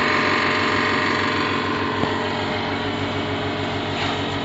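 Vacuum pump of a DZ series chamber vacuum sealer running steadily, pulling the air out of the closed chamber during the vacuum stage of the cycle. A faint click comes about two seconds in.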